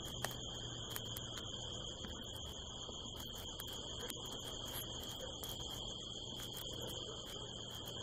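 Steady night chorus of crickets, a continuous high trill without pauses, with a few light clicks near the start.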